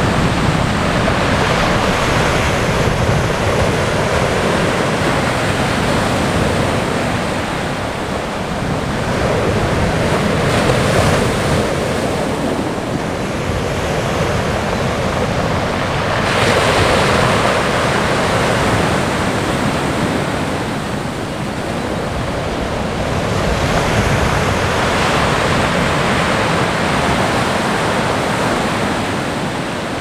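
Pacific Ocean surf breaking and washing ashore in a continuous rush, swelling and easing again every several seconds as each set of waves comes in.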